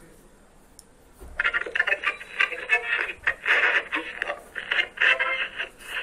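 A voice played through a small radio speaker, thin and tinny with no bass, coming in loud about a second in after a quiet start.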